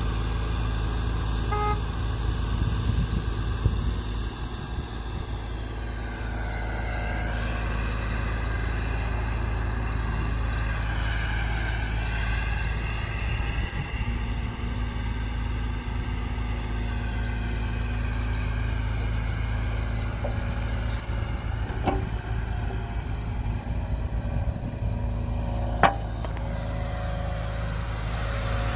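Bobcat 435 mini excavator's Kubota V2403 diesel engine running steadily. Its note dips and recovers twice, and two sharp knocks come in the second half.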